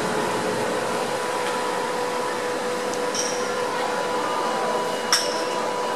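Steady mechanical drone with a constant pitched hum over a wash of noise. A short sharp click comes about three seconds in, and a louder one about five seconds in.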